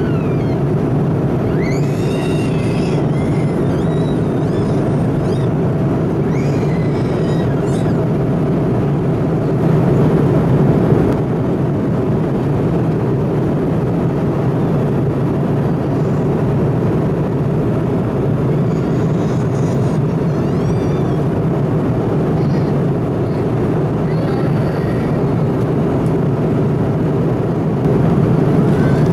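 Steady drone inside an Airbus A330-200's cabin in flight: engine and airflow noise.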